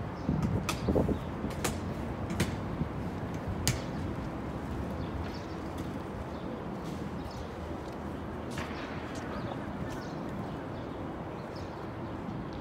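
Steady low outdoor city background noise, with a few sharp clicks in the first four seconds.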